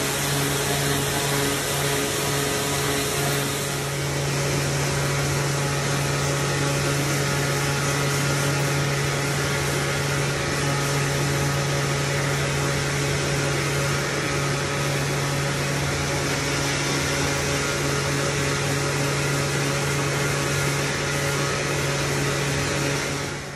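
Electric random-orbit sander with a wool buffing pad, running steadily against a wooden gunstock: a continuous motor hum over the hiss of the pad on the wood. The tone shifts slightly about four seconds in.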